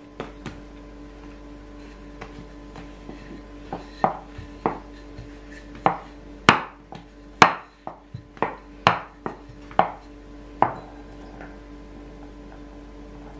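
Wooden rolling pin rolling out bread dough on a wooden board, knocking against the wood about a dozen times at roughly two knocks a second, over a steady faint hum.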